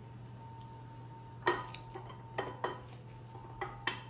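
Camshaft of an LT1 small-block Chevy being slid out of the block by hand, its lobes clinking against the cam bearings. There are about six short metallic clinks with a brief ring, starting about a second and a half in.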